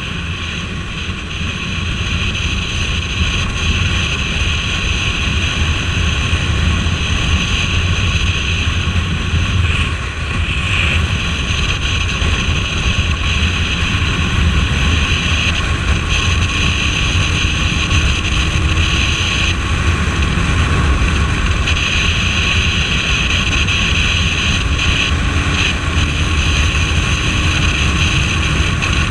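Suzuki Bandit 1250S motorcycle riding at speed: steady wind noise over the microphone over a low road and engine rumble. A faint engine note rises slowly twice in the second half.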